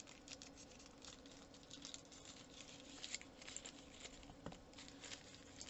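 Faint rustling and light clicks of a small plastic accessory bag holding the inflator's valve and ball adapters being handled, over a low steady hum.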